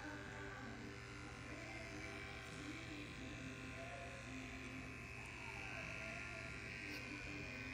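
Cordless electric pet grooming clipper running with a steady, even buzz.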